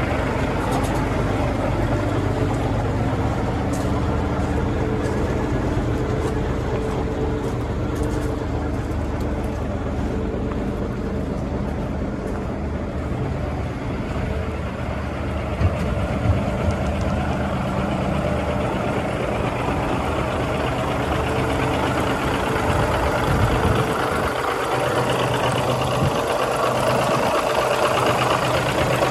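Cummins diesel engine of an International 9400 road tractor idling steadily.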